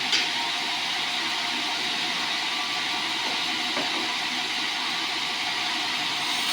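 Sawmill bandsaw blade cutting through a sonokeling (Indian rosewood) log, a steady high hiss, with one brief click just after it begins.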